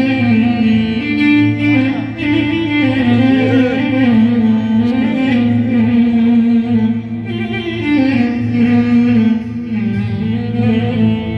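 Music: a plucked string instrument plays a winding melody over a steady low drone.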